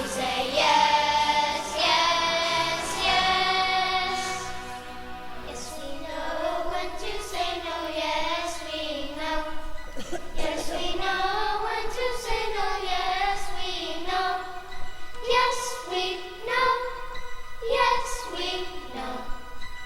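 A song with voices, including children's, singing over instrumental accompaniment.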